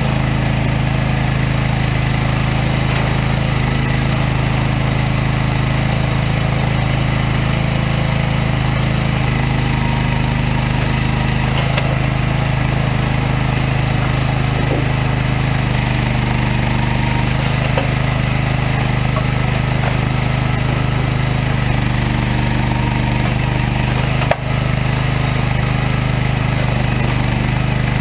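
Regon R1 firewood processor's engine running steadily at a constant speed, with a few faint knocks from the machine and one short sharp click near the end.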